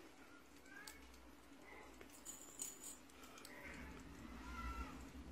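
Faint jingling and rattling from a feather-and-tinsel wand toy being batted about, loudest about two and a half seconds in, with a few faint high mews from Russian Blue kittens.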